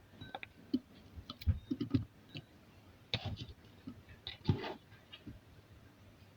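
Chopped onion pieces being laid by hand into a mug over sugar: irregular light clicks, taps and scratches, with a few slightly louder knocks and a couple of brief small clinks.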